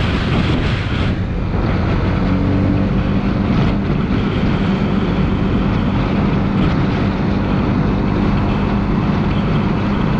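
Motorcycle engine running at steady revs while riding along at road speed, with wind rushing over the microphone.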